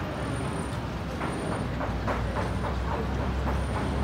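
Low, steady rumble of a passing vehicle, growing stronger near the end, over general city street noise.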